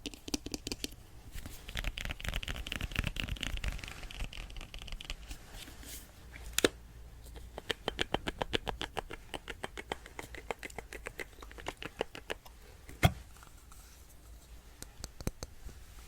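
Art tools handled close to the microphone for ASMR: rapid light tapping and scratchy brushing strokes, with a sharp click about six and a half seconds in and a louder one about thirteen seconds in.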